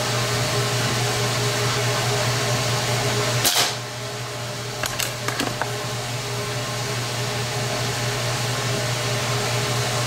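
A single sharp shot from a .22 Benjamin Marauder Woods Walker precharged pneumatic air gun about three and a half seconds in, followed a second or two later by a few quick clicks, over a steady low hum.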